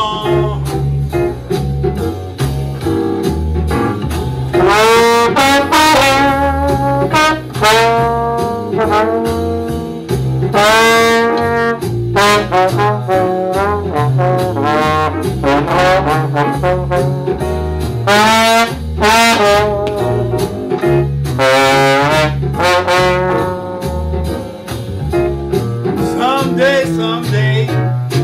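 Slide trombone playing a solo through a microphone and PA, with phrases that slide between notes. A steady bass line accompanies it throughout.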